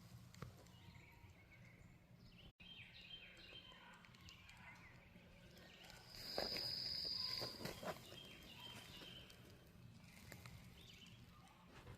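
Faint outdoor ambience with scattered short chirps. The sound cuts out completely for an instant near the start. About halfway through, a steady high-pitched note lasts about a second and a half and is the loudest sound.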